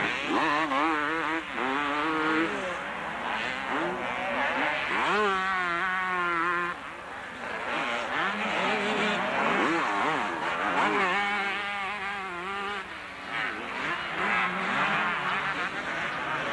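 Several two-stroke motocross bikes racing, their engine notes overlapping and repeatedly rising and falling as the riders open and close the throttle and shift.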